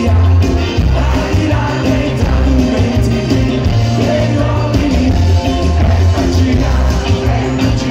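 Rock band playing live and loud through a concert PA, with electric guitar and heavy bass under a male singer's voice.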